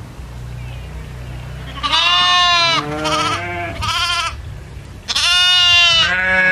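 Goats bleating: a loud bleat about two seconds in, two shorter bleats after it, and a long bleat near the end, over a low steady rumble.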